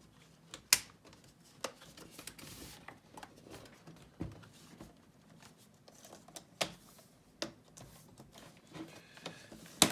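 Plastic clicks and snaps from a laptop's keyboard frame being pressed into place on the chassis, with handling noise between. There are half a dozen scattered sharp clicks, the loudest about three-quarters of a second in and another just before the end.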